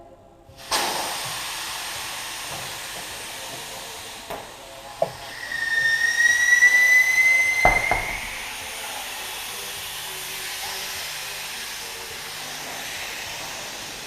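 Compressed air hissing into a tubeless tire during inflation, starting abruptly under a second in. Midway a whistling tone rises slightly as the air flow gets louder, with a sharp knock near eight seconds, then the hiss settles to a steady level.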